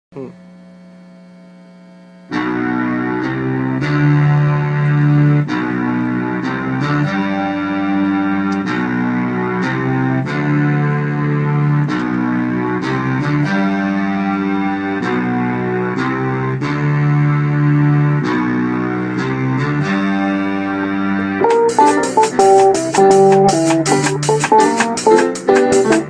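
Electronic keyboard playing a steady progression of held chords, starting about two seconds in. Near the end an electric bass guitar comes in with plucked notes over a fast, crisp clicking rhythm.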